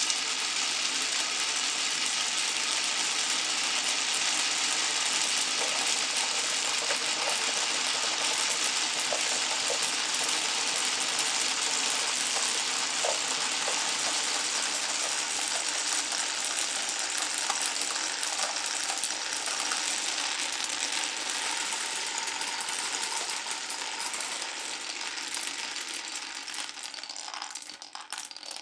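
Many glass marbles rolling and clicking through a wooden marble run of blocks and rails, a dense continuous rattle that thins out near the end.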